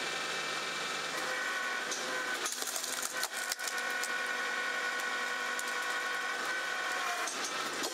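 Balfor A18 C vertical hydraulic log splitter running off a tractor's PTO, a steady whine of several tones, while the wedge is driven down through a log and splits it. A cluster of clicks and knocks comes about two and a half to three and a half seconds in.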